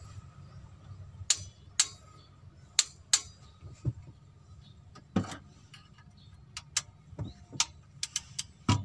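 Irregular sharp metallic clinks and clicks of a socket wrench and long extension bar being worked onto bolts among the rocker arms of a Mitsubishi L300 diesel cylinder head, metal tapping on metal about a dozen times.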